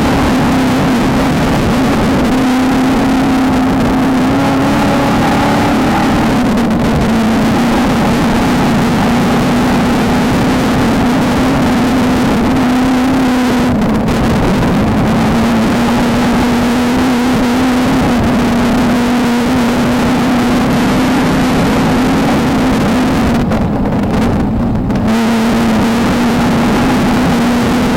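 VW Beetle-based off-road race car's engine running hard at high, fairly steady revs, its pitch drifting a little up and down, over a constant rumble of chassis and terrain noise. The hiss briefly drops away about 24 seconds in.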